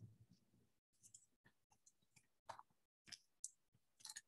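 Near silence broken by faint, brief scratches and ticks from a BIC ballpoint pen writing a word on paper.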